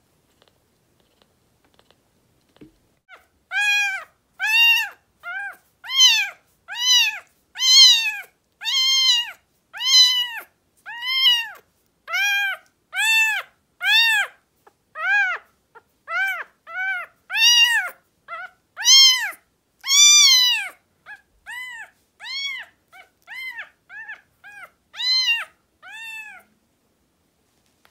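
Newborn kitten mewing over and over in high, piercing cries, nearly two a second, each call rising and then falling in pitch. The cries start about three and a half seconds in and turn shorter and softer near the end.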